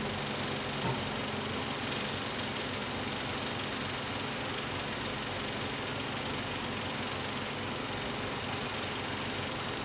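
Steady rushing hum of a running fan motor, even in level throughout, with one faint click about a second in.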